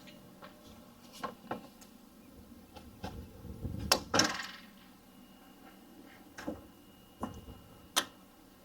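Plastic clips and cover of a 2007 Toyota Highlander Hybrid engine air filter box being snapped and fastened by hand: a series of separate clicks and knocks, the loudest about four seconds in and a sharp click near the end.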